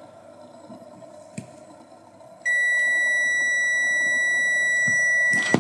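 Multimeter continuity tester giving one steady high beep, starting about two and a half seconds in and lasting about three seconds, as its probes bridge a motor stator coil: the winding has continuity and is not broken.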